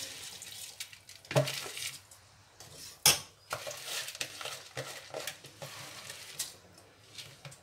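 Soaked basmati rice tipped into a steel pot of boiling mutton stock and stirred, the spoon knocking and scraping against the pot over the bubbling broth. The loudest knocks come about one and a half and three seconds in.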